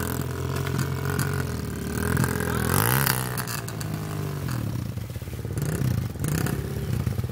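Dirt bike engine revving while the bike is stuck in deep mud and being pushed through, its rear wheel spinning and throwing mud. The revs swell up and fall back about three seconds in, with smaller blips near the end.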